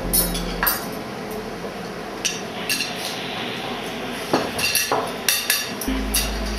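Metal cutlery and serving utensils clinking and scraping on ceramic plates as food is dished up, in scattered short clinks.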